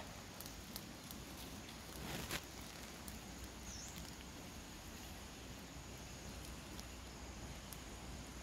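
Faint rural outdoor ambience: a steady low hiss with scattered small ticks, a brief rustle about two seconds in, and a short high chirp near four seconds.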